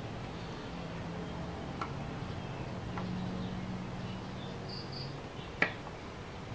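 A few light clicks of stripboard pieces being handled and fitted together by hand, the sharpest one near the end, over a steady low hum.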